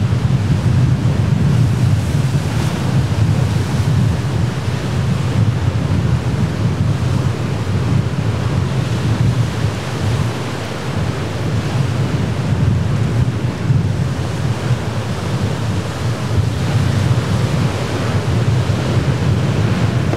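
Surf breaking and washing over a rock jetty, a steady rush of waves with wind rumbling on the microphone.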